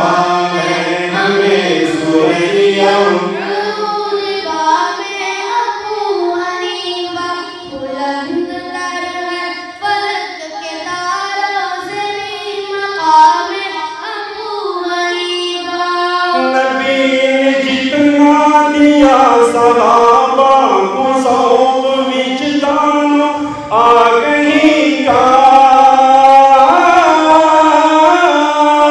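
Devotional vocal music: an Urdu manqabat in praise of Imam Abu Hanifa, sung as a long melodic chant. The singing moves higher and gets louder about sixteen seconds in.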